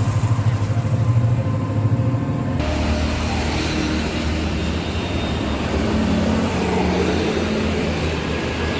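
Roadside traffic: vehicle engines running close by. A low, fast-pulsing engine rumble in the first two and a half seconds changes abruptly to a wider, steady traffic noise.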